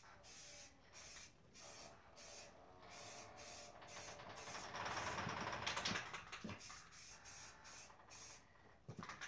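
Aerosol spray can of matte black wheel paint hissing in short, quick bursts, with a longer, louder spray about five seconds in. A few light knocks near the end.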